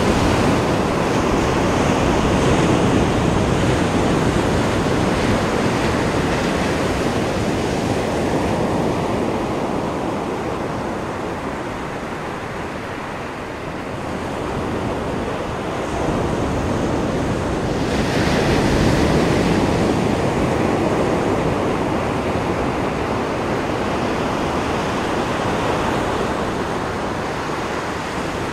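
Ocean surf washing onto a beach. It is loud at first, eases off about halfway through, then swells up again in a second surge before easing.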